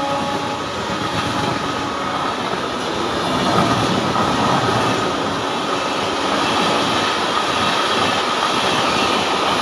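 Indian Railways express train running past at speed, the steady rumble and rattle of its coaches on the rails. The two-tone horn of its WAP-7 electric locomotive tails off about half a second in.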